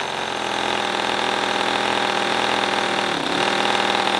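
Toyan 28cc four-stroke nitro V8 model engine running steadily with open exhaust collectors in place of its mufflers. Its speed dips briefly about three seconds in, then recovers.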